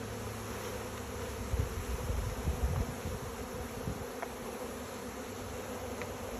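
A swarm of honey bees buzzing in a steady, dense hum around the hive box. A few low bumps come about two seconds in.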